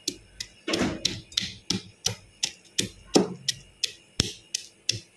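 Pestle pounding whole unpeeled garlic in a mortar, a steady run of sharp knocks about three a second, with a couple of heavier blows about a second in and about three seconds in.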